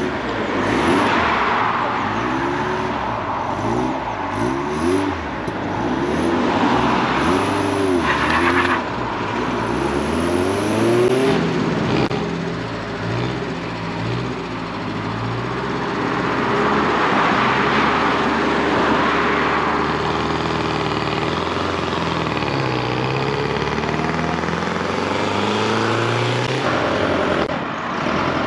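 Cars pulling away one after another, engines revving up in quick repeated rises in pitch as they change gear, then steadier engine and tyre noise as they drive past.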